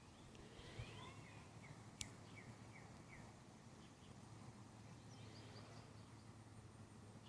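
Quiet outdoor ambience: faint small-bird chirps in short series over a steady low hum, with a soft thump under a second in and one sharp click about two seconds in.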